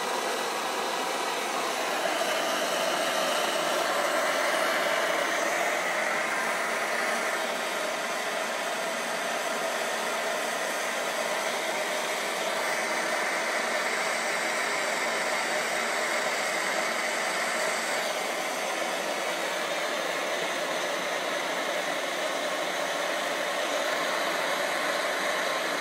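Several vintage Optimus pressure stoves (white-gas and kerosene box stoves) burning at full flame together, their burners giving a steady roar that grows a little louder about two seconds in.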